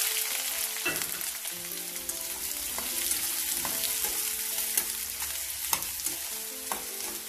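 Chopped onion sizzling and frying in hot oil in a metal kadhai, with a metal spatula knocking and scraping against the pan now and then as it is stirred.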